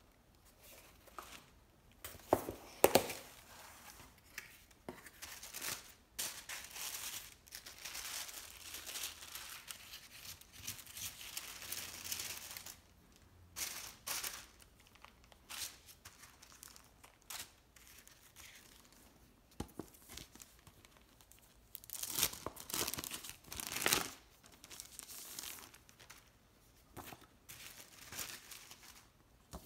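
Unboxing a taped cardboard mailer box: a sharp tearing rip about two to three seconds in, then tissue paper crinkling and rustling for several seconds as it is unfolded. Paper sheets and plastic bags are handled in scattered rustles after that, with another loud burst of crinkling near the end.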